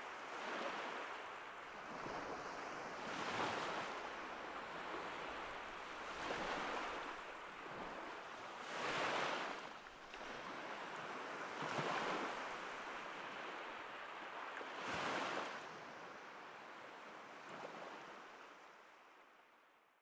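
Waves surging and washing on a shore, swelling and easing about every three seconds, then fading out near the end.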